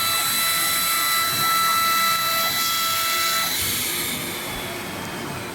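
Cutting plotter running: a steady high hiss with several whining motor tones. The whine stops about three and a half seconds in and the hiss dies down after it.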